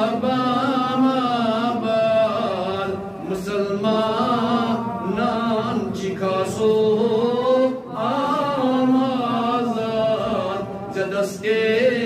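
A man's solo voice chanting a munajaat, an Islamic devotional supplication poem, in long melodic phrases with short breaks between them.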